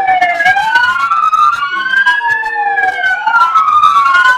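Police-car siren wail: two tones sweep slowly up and down, out of step so that they cross each other, each rise or fall lasting a second or more.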